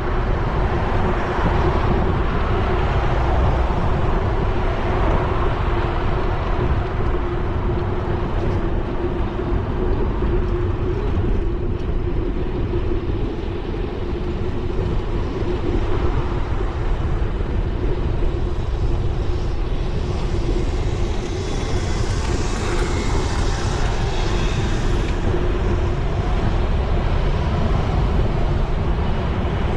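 Wind rushing over the microphone of a camera on a moving bicycle, with the steady noise of car traffic on the road around it. About two-thirds of the way through, a brief higher hiss rises over it.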